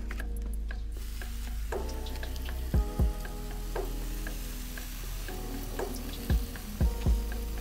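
Water spraying from a garden hose spray nozzle onto plant roots and potting soil: a steady hiss that starts about a second in. Background music with a thumping beat plays underneath.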